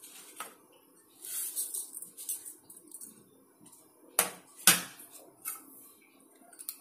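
A spoon scraping and clinking against a stainless steel bowl as spice powders and curd are tipped onto raw chicken pieces: soft scrapes at first, then a few sharp clinks, the loudest two close together past the middle.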